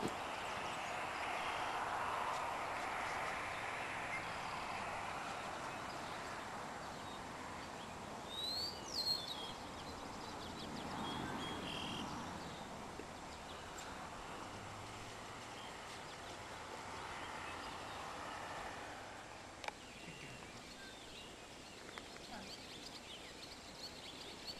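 Faint outdoor pasture ambience, a steady soft hiss, with a short rising whistle about nine seconds in and a few faint clicks.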